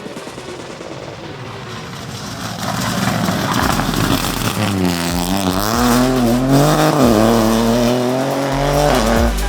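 Opel Corsa Rally4 rally car's turbocharged three-cylinder engine at speed on a stage, faint at first, then growing loud from about three seconds in, its revs rising and falling again and again through gear changes and throttle lifts.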